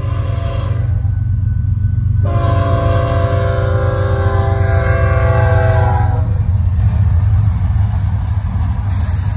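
Diesel freight locomotive horn sounding for a grade crossing: a short blast, then a long blast of about four seconds, over the steady low rumble of the approaching train. Wheel and rail noise grows louder near the end as the locomotives reach the crossing.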